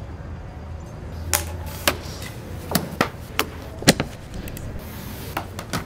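A string of irregular sharp knocks and clicks, about a dozen, starting a little over a second in, over a steady low hum.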